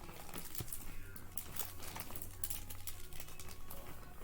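Rummaging through small loose items: rustling and light clicks and clatters of things being moved and handled, with a faint voice or music underneath.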